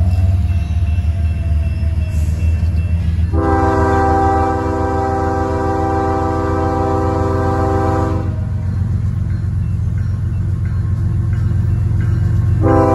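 Union Pacific freight train's diesel locomotives approaching with a steady low rumble. The lead locomotive's multi-chime air horn sounds one long blast of about five seconds, starting about three seconds in, and starts another blast near the end.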